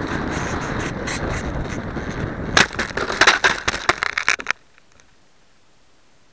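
Steady rushing noise of a fast-moving small motorised model with an onboard camera, then a run of hard knocks and cracks as it crashes and tumbles into the snow. About four and a half seconds in the sound cuts off suddenly, leaving only a faint hiss.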